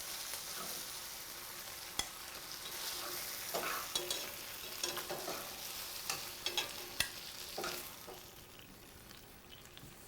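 Chicken breasts sizzling in a skillet with their marinade cooked off, as they are taken out of the pan. Several sharp clicks of a utensil against the pan come about a second apart, and the sizzle fades near the end.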